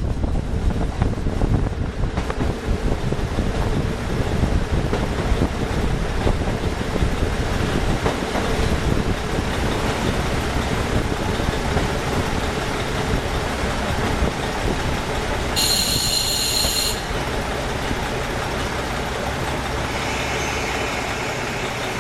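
KiHa 40 diesel railcar running on the line: a steady rumble of wheels and engine that eases slightly near the end. A short high-pitched sound cuts in briefly about sixteen seconds in.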